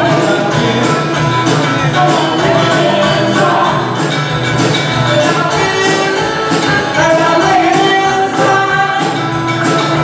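Live band playing: a woman singing lead over acoustic and electric guitars, with a steady percussive beat.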